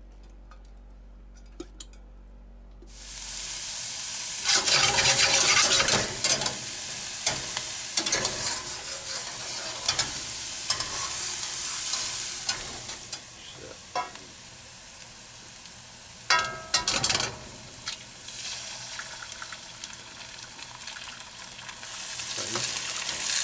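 Food sizzling and being stir-fried in a stainless steel wok, with a utensil scraping and clattering against the pan. A few light clicks come first; the sizzle starts suddenly about three seconds in and swells louder twice, around five seconds and again around sixteen seconds.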